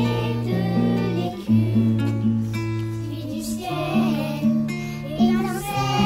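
A group of young children singing a song together in unison, accompanied by a plucked string instrument holding low notes that change about once a second.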